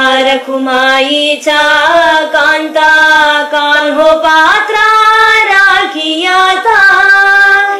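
A woman singing a devotional song in Carnatic style, holding long notes and sliding between pitches from phrase to phrase.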